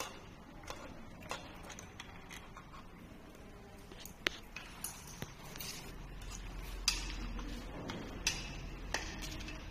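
Scattered light metallic clicks and clinks of a screwdriver and a headlight's slotted metal bracket being handled at an e-bike's front fork. A low rumble joins about six seconds in.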